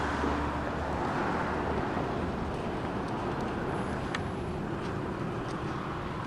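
Steady outdoor background noise of road traffic, with a low rumble and a few faint clicks.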